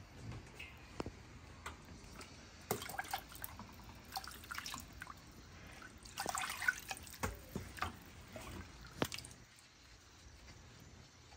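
Meat stock poured from a metal pot into a pot of peanut butter soup, splashing and dripping, loudest about six seconds in. A few sharp clicks of the pots and spoon are scattered through.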